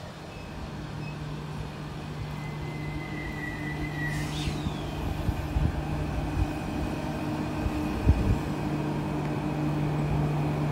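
Transperth A-series electric multiple unit pulling into the station, its motors giving a steady low hum that grows louder as the train draws near, with a few knocks from the wheels a little past halfway.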